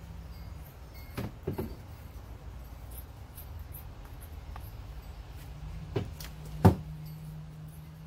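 Scissors cutting through thick denim jeans, giving sharp snipping clicks: three about a second in and two more near the end, the last the loudest. A low steady hum runs underneath in the second half.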